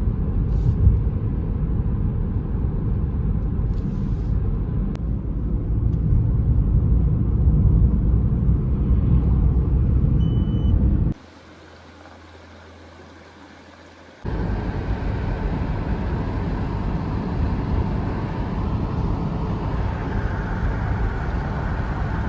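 Car driving on a road: a steady low rumble of tyres and engine. About halfway through it drops out for roughly three seconds to a faint low hum, then resumes.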